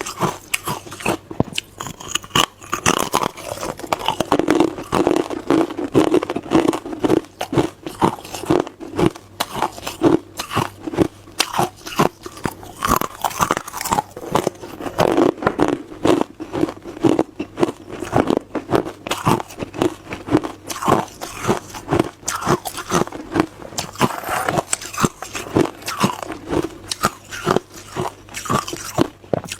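Someone biting and chewing hard, clear ice close to the microphone: rapid, irregular loud crunches and cracks, fast and continuous.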